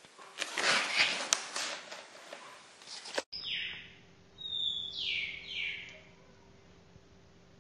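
Scratchy rustling of a cat moving inside a cardboard box for about three seconds, stopping abruptly. Then come three or four short, high chirps, each falling in pitch, over a faint steady hum.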